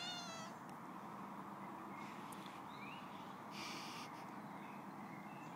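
A short, wavering meow from a small domestic cat right at the start, over a faint steady outdoor hum. A few faint high rising chirps and a brief rustle follow.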